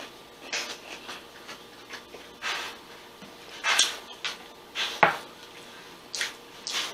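Close-miked eating and drinking sounds: sips from a glass and chewing, heard as short soft noises about a second apart. About five seconds in comes a sharp knock as the glass is set down on the countertop.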